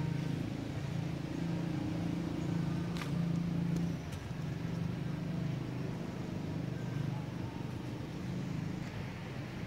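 Steady low engine drone, as of a motor vehicle running nearby, with one sharp click about three seconds in.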